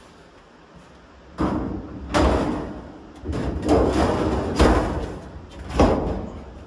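Sheet metal trunk divider panel being test-fitted into the car body: about five loud bangs and rattles of thin metal, starting about a second and a half in, each dying away quickly.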